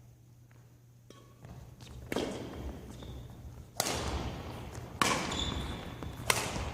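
Badminton rally: rackets strike the shuttlecock four times, each hit sharp and echoing in a large sports hall.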